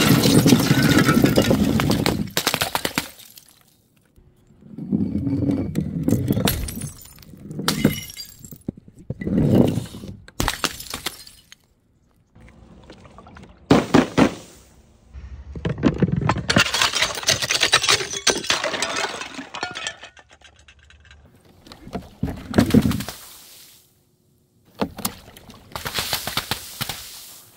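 A string of about nine separate smashes and splashes: painted glass mason jars breaking, and paint-filled balloons bursting on a board of upright nails and splattering. Some crashes last a second or more; others are short sharp bursts.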